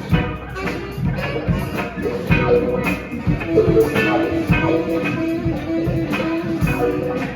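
Band music led by guitar, with drums keeping a steady beat.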